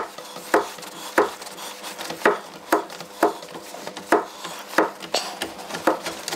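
Socket ratchet worked in short strokes, about two sharp clacks a second with faint clicking between them, as the Volvo 940 turbo's engine is turned over by hand at the crank so the new timing belt settles and the timing marks come round.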